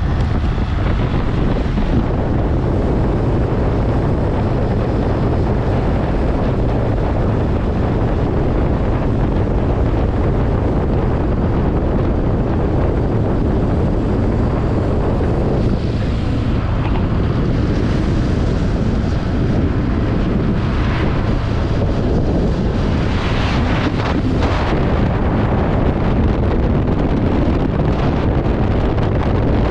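Wind buffeting the microphone over a motorcycle engine running at road speed, a steady low rumble with a couple of brief louder rushes past the halfway point.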